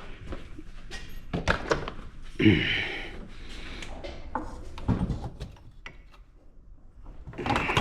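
Scattered knocks and clunks of hands and tools working on a car in a small shop, with a short rasping hiss about two and a half seconds in.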